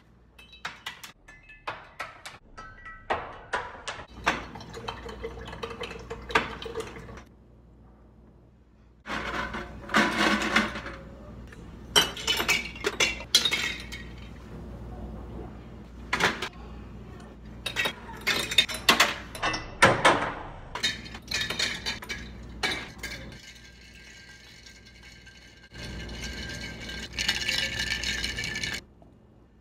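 Kitchen clatter: a glass jar, ice cubes and kitchenware clinking and knocking over and over, with a few longer noisy stretches between the clinks.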